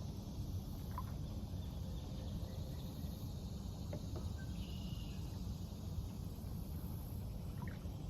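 Outdoor lake ambience: a steady low rumble with faint insect sounds and a few short, high chirps.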